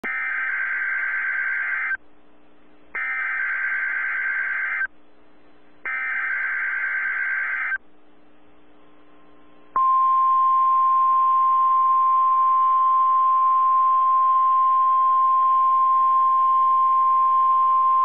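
NOAA Weather Radio Required Weekly Test alert heard through a weather radio receiver. It opens with three short bursts of digital SAME header data, each about two seconds long with a second's pause between them. After a brief gap comes the 1050 Hz warning alarm tone, one long steady tone held for about nine seconds over light radio hiss.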